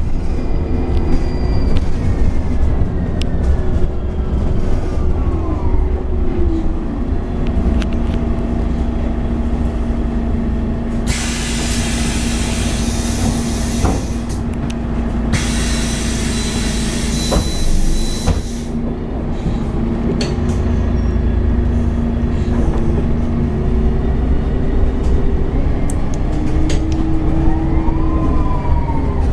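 2024 MAN Lion's City 12C city bus with a Voith D864.6 automatic gearbox: a drivetrain whine falls in pitch over the first several seconds as the bus slows, over a steady engine tone. Compressed air hisses in two long blasts from about eleven to eighteen seconds in, and near the end the whine rises again as the bus pulls away.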